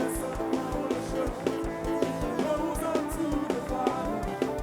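Live worship band music: held chords over a steady drum beat.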